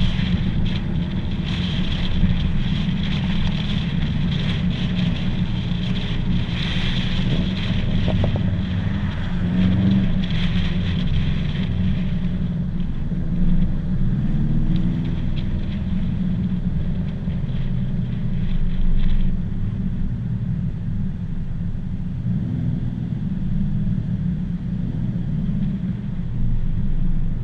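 Subaru cars cruising on the road: a steady low engine and road rumble, with engine pitch rising and falling a little, under wind noise on the microphone. The wind hiss is heavier for the first dozen seconds and then eases off.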